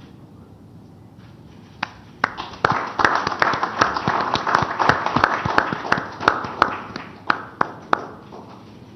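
Audience applauding: a few claps about two seconds in, swelling into general applause that fades out near the end.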